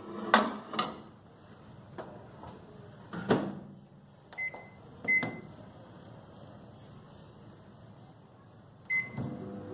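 Microwave oven being loaded and set: a few knocks, a louder clunk as the door shuts about three seconds in, then short keypad beeps as the time and power are entered. Just before the end the oven starts running with a steady low hum.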